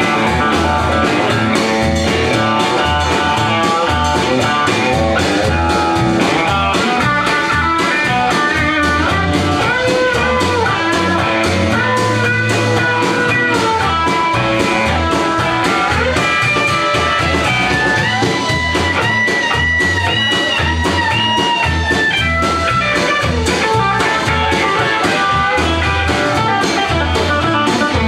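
Live blues band playing an instrumental passage: electric guitars, electric bass and drum kit with a steady beat, and a run of high held notes around the middle.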